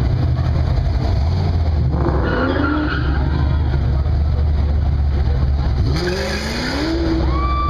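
Loud car engines and exhausts rumbling steadily, with a sound rising in pitch about six seconds in.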